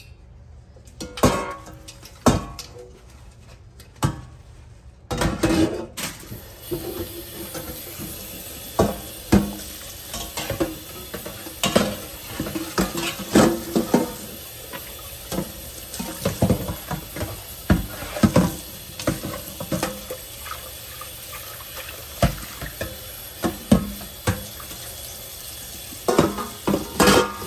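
Stainless steel pot and perforated steamer insert being scrubbed and rinsed in a stainless steel sink, with repeated metal clanks and knocks against the sink. Tap water runs into the sink from about five seconds in.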